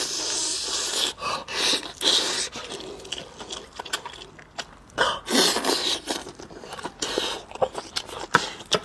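A person eating spicy rice noodles with beef intestine: several loud, hissing slurps a second or two apart, with wet chewing clicks between them.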